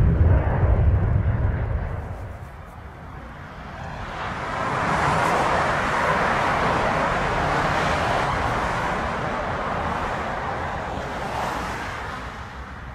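Jet airliner engine noise. A deep rumble as a narrow-body twin-jet rolls past on its takeoff run dies away after about two seconds. Then a broader jet engine sound swells up about four seconds in and slowly fades toward the end.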